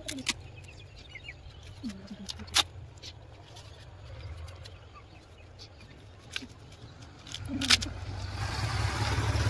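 Low rumble of a motor vehicle on the road, growing louder over the last two seconds, with a few sharp clicks from the protective pads and their straps being handled.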